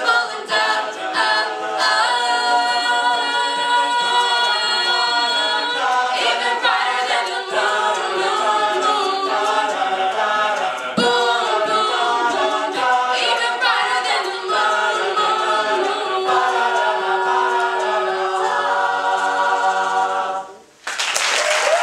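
A collegiate a cappella group of mixed voices sings the closing section of a pop song in close harmony, holding stacked chords. The singing cuts off about twenty seconds in, and after a short gap the audience breaks into applause.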